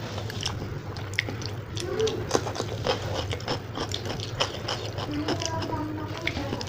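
Close-miked eating sounds of Maggi instant noodles being chewed: a run of many short wet mouth clicks and bites.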